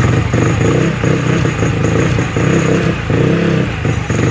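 Supercharged Yamaha Force 155 scooter's single-cylinder engine running, its sound surging in a regular pulse about one and a half times a second.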